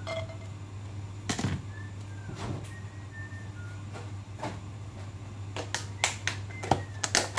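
Scattered clicks and knocks of kitchen things being handled. Near the end they turn into a run of sharp plastic clacks as a lidded plastic food container is handled. Underneath runs a steady low hum, with faint short chirps of pet birds now and then.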